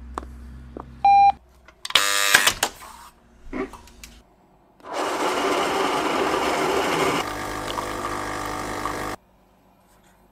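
A doorbell intercom panel gives a short electronic beep, then a door buzzer sounds for about a second. After a few clicks, a Carat coffee vending machine runs for about four seconds while making a drink, its sound changing partway through and then stopping abruptly.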